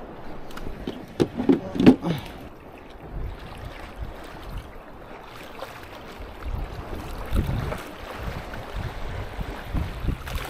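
Strong wind buffeting the microphone, an uneven low rumble that surges and drops, with a louder burst about two seconds in.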